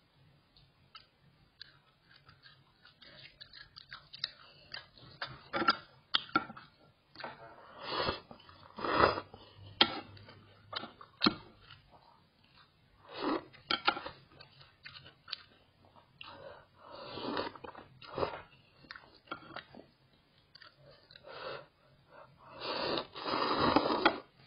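A person eating close to the microphone: chewing and mouth clicks in irregular short bursts, then a longer, louder stretch near the end as noodles are slurped.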